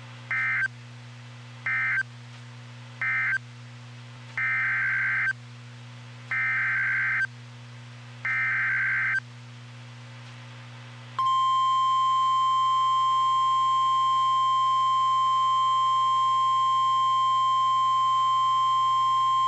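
NOAA Weather Radio Emergency Alert System tones. Three short SAME data bursts (the end-of-message code) are followed by three longer SAME header bursts announcing the next warning. Then comes the steady 1050 Hz warning alarm tone, which starts about 11 seconds in, runs about nine seconds and is the loudest part.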